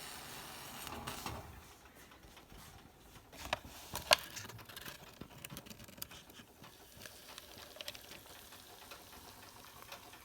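Boiling water poured from a kettle into a cup of instant noodles, the stream ending about a second and a half in. Then two sharp clicks and a few faint taps.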